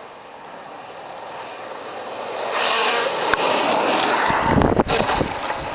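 Longboard wheels rolling on asphalt, a hiss that grows steadily louder as the skaters come down the road toward the microphone. About four to five seconds in there is heavy wind rumble on the microphone with a few clicks.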